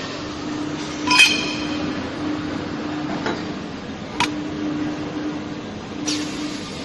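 Steel tube clinking against the steel fixture of a circumferential welding machine as it is loaded by hand: four sharp metallic clinks, the loudest and most ringing about a second in. Under them runs a low hum from the machine that comes and goes.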